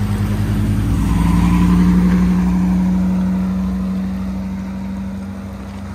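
A motor vehicle's engine running with a steady low hum. Its pitch shifts about a second in, and it is loudest around two seconds in before slowly fading.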